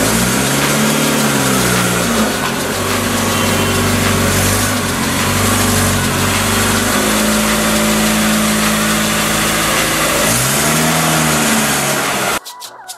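Hindustan Contessa's 1.8-litre four-cylinder petrol engine running in a garage. It is blipped up and back down once at the start, runs steadily, then is revved up and back down again near the end. Music abruptly replaces it just before the end.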